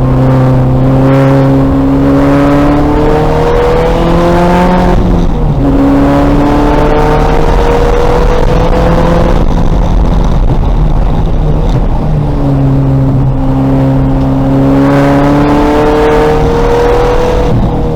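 A 2000 Volkswagen Golf race car's engine running hard on track. Its pitch climbs under acceleration and drops back several times with the shifts and lifts.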